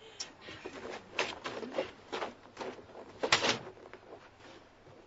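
Wooden sleds knocking and scraping against a wooden wall and deck as they are handled and leaned upright: a string of irregular knocks, the loudest about three seconds in.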